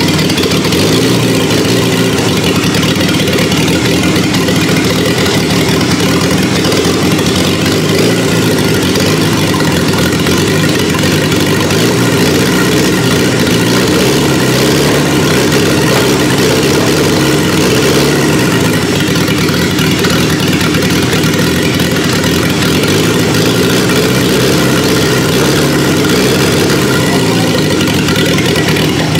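A petrol engine converted to run as a diesel, with its compression raised and a diesel injection pump fitted, running steadily on diesel fuel.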